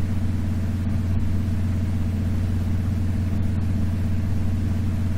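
Steady low electrical hum, with a strong low tone and a ladder of even overtones above it.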